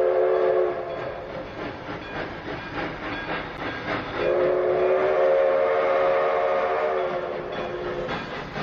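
Grand Trunk Western 4070 steam locomotive's chime whistle sounding a chord of several notes at once: a blast that ends just under a second in, then a long blast from about four seconds in until shortly before the end. The train's running noise and clanking carry on underneath.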